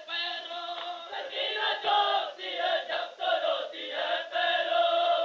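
Voices chanting an Urdu noha, a mournful Shia lament, in long drawn-out sung lines.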